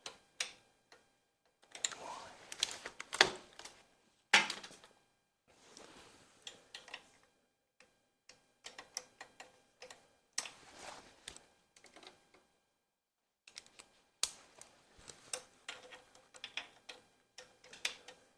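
Metal hand tools working on engine parts: irregular runs of quick clicks, scrapes and knocks in short bursts, with a few sharper knocks.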